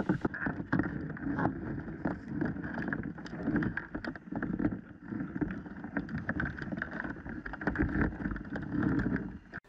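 Muffled underwater sound picked up by a GoPro in its housing on a lobster trap on the seabed. It is a low, even rumble scattered with many small irregular clicks and knocks.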